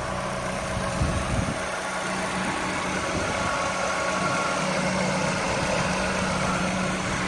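Acura RSX four-cylinder engine idling steadily while it warms up after a fresh oil change, with a brief rustle about a second in.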